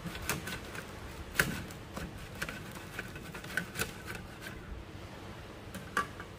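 Irregular light clicks and taps of objects being handled, with louder knocks about one and a half seconds in and again near the end.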